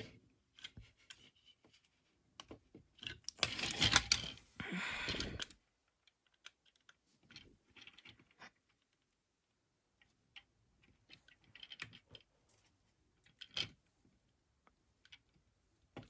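Small plastic clicks and rattles from handling a plastic action figure and its upgrade-kit parts, with a denser clatter about three to five and a half seconds in, then only scattered ticks.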